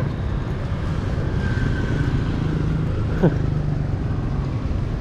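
Steady rumble of city street traffic with motorbikes. About three seconds in there is one short squeak that falls steeply in pitch.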